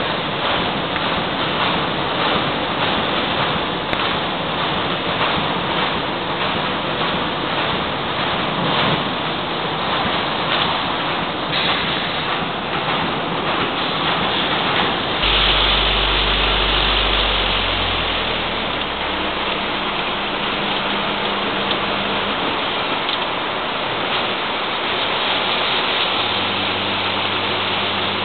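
Wire-processing machinery running on a factory floor: a dense, noisy clatter with a rapid pulse through the first half. About halfway through it changes to a steadier noise with a low hum underneath.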